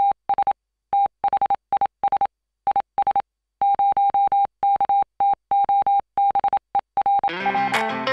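A single steady electronic beep tone keyed on and off in short and long pulses, like Morse code. Music with guitar comes in about seven seconds in.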